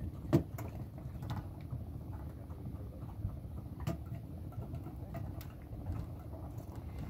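Low, steady rumble of wind and water around a small open boat at sea, broken by a few sharp knocks and clicks of fishing tackle being handled, the loudest about half a second in.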